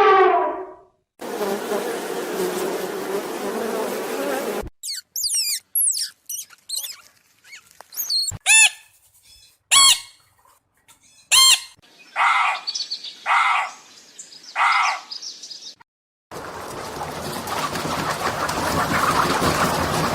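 A string of short animal-sound clips. First a buzzing hum, then a bird's quick chirps and whistling notes sweeping in pitch, then three harsh calls about a second apart, and finally a steady hiss.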